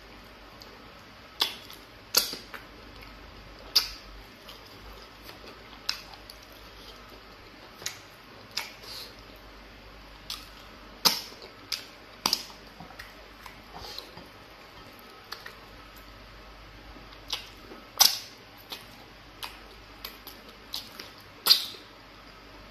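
Close-miked eating by hand of soft fufu with egusi soup: wet smacks and clicks of the mouth and fingers, about fifteen short sharp ones at irregular intervals a second or few apart.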